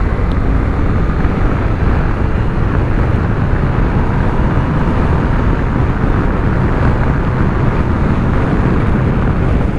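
Riding at speed on an MV Agusta Turismo Veloce 800: a steady rush of wind buffeting the microphone, with the bike's 800 cc three-cylinder engine running underneath. The rider puts the heavy wind down to sitting upright behind the stock windscreen.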